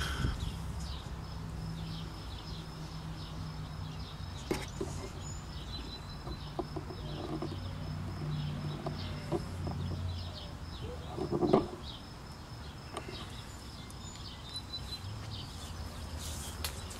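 Birds chirping repeatedly in short calls over a low steady hum, with a brief knock about eleven seconds in.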